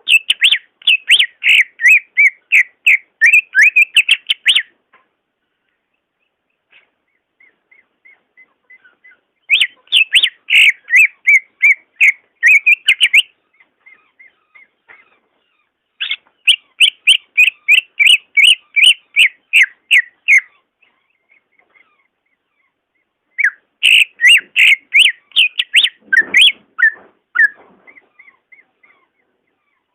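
Cucak ijo (green leafbird) singing in four bouts of rapid, loud whistled notes, each about four seconds long, with quieter scattered chirps in the pauses between them.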